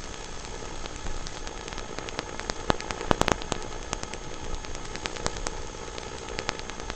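Radio-controlled car driving on gravel: a steady hiss of tyres and motor with scattered sharp clicks of stones, the loudest cluster about three seconds in.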